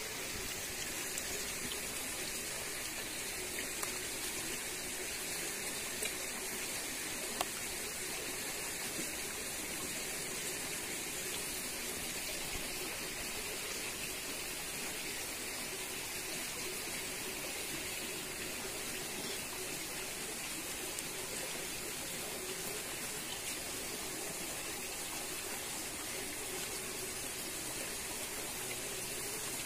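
Small river flowing: a steady rush of running water, with a few faint clicks in the first several seconds.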